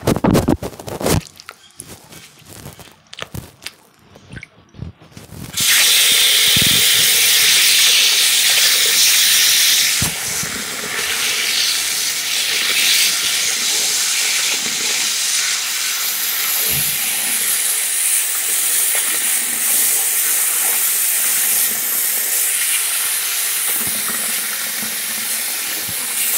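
A few knocks and handling noises, then about five seconds in a bathroom tap is turned on and water runs steadily into the sink, splashing over a small compressed towel held under the stream.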